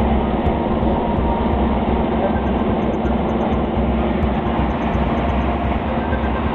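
Steady drone of a light aircraft's engine and propeller in level flight, heard from inside the cabin: a constant low hum under a loud, even rushing noise.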